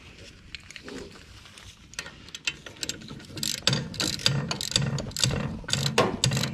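Hand ratchet wrench clicking as bolts are tightened on a tractor's front-axle bevel gear housing. Faint and sparse at first, then quick runs of clicks from about halfway in.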